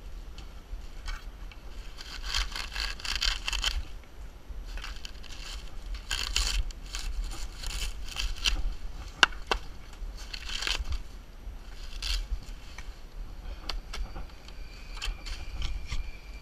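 Dead, dry fan-palm fronds and their fibrous frond bases scraping and crackling in bursts as they are torn and worked loose by hand, with one sharp snap about nine seconds in.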